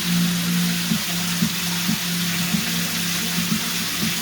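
Hot water from a shower running across a floor and hissing into a drain, a steady watery hiss with a steady low hum underneath.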